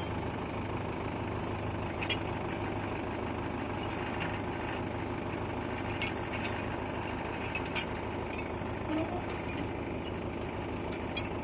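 Tractor diesel engine idling steadily, with a few sharp metal clinks of a tow chain being handled.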